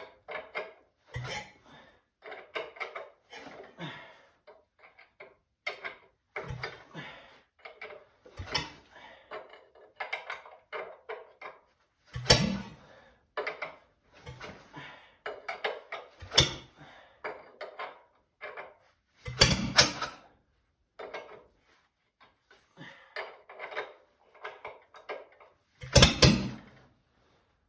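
Ford flathead four-cylinder engine turning over on starting fluid and catching only in sputters: irregular knocks and clatters with short gaps. Several louder bangs come about twelve seconds in, around twenty seconds in and near the end.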